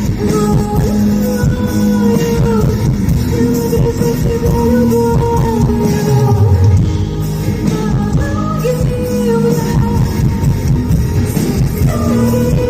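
Pop-rock song: a singer holding long notes over a full band.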